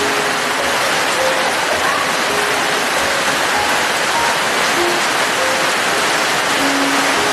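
Steady, dense rainfall hiss, with soft music under it: single quiet notes at an unhurried pace.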